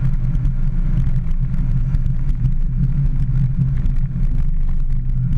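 Mini Cooper S engine and road noise heard from inside the cabin while driving: a loud, steady low drone.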